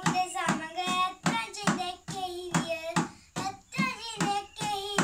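A child singing Sinhala viridu verses, accompanied by her own strokes on a small hand-held rabana frame drum, about two strokes a second.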